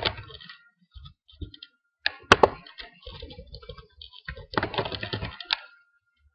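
Typing on a computer keyboard in several short bursts of keystrokes, with one louder key strike about two and a half seconds in.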